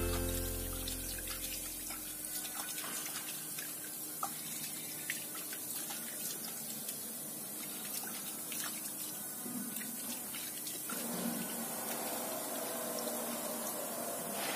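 Soapy water sloshing in a small plastic bowl and dripping and splashing as a hand scoops it onto a plastic blower fan, with scattered small drips and splashes over a faint hiss.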